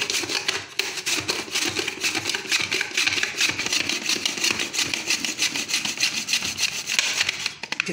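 A tomato being sliced on a Bruno (Kitchen Master) mandoline-style salad cutter, its plastic holder pushed rapidly up and down over the blade. The strokes come in a fast, steady rhythm of rubbing and scraping, several a second, and stop near the end.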